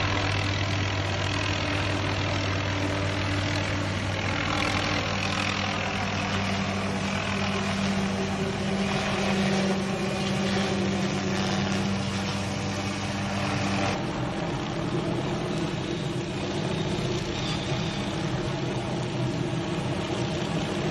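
Helicopter carrying a hanging aerial tree-trimming saw on a long boom, hovering overhead with a steady engine and rotor drone. The steady low hum under it changes about fourteen seconds in.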